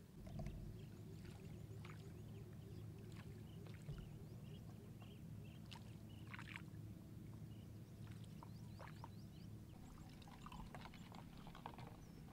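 Quiet outdoor ambience on the water: a low steady hum with scattered small clicks, knocks and short high chirps.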